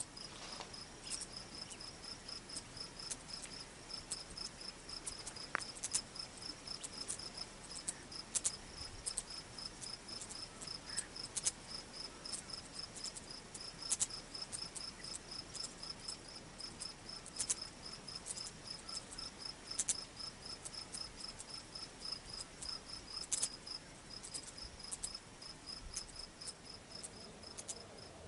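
Night chorus of crickets: a high, rapid, evenly pulsing chirp that runs on steadily, with a fainter lower pulsing call beneath it. Scattered sharp clicks stand out above it.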